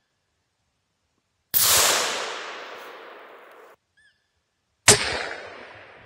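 Two hunting rifle shots, about three seconds apart, each a sharp crack followed by a long echo dying away through the forest; the first echo cuts off abruptly.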